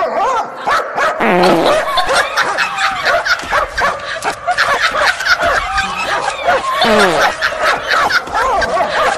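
Dog barking and yipping over and over in quick, pitched calls.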